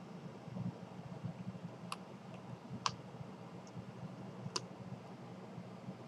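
Long, quiet draw on a pen-style e-cigarette: three faint, sharp clicks spread over a few seconds, over a low steady hum.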